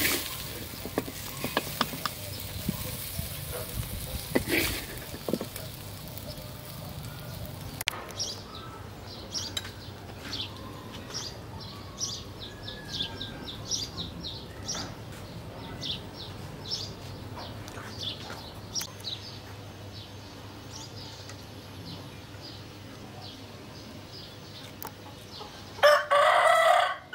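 A rooster crows once, loudly, for about a second near the end. Before that come faint, repeated short high chirps and light clicks.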